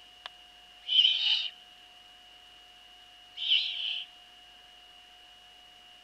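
Eurasian eagle-owl chicks' begging calls: two hoarse, hissing calls about half a second long, roughly two and a half seconds apart. A faint steady high whine runs underneath.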